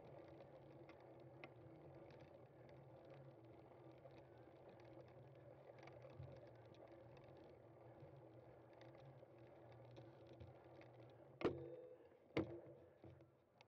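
Cyclocross bike in motion: a steady low hum from tyres and drivetrain with light rattling clicks, then two sharp knocks about a second apart near the end, after which the hum drops away.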